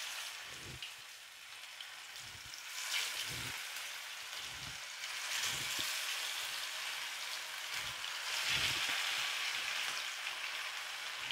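Masala-coated fish pieces frying in hot oil in a pan, a steady sizzle that swells every few seconds, with soft low knocks now and then.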